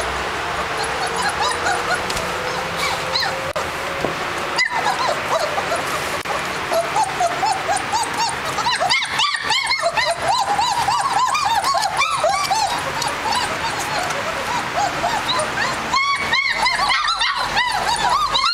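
A litter of German Shepherd puppies whining and yelping. One long, slowly rising whine comes first, then many short high calls overlap, coming thicker in the second half.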